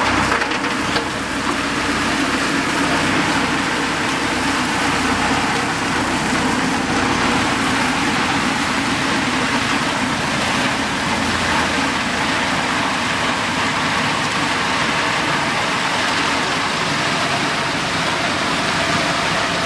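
Rotary snow blower on a snow-clearing vehicle throwing snow, its heavy diesel engine and the blower running steadily as one loud, even rush of noise, with the engine of a truck waiting alongside.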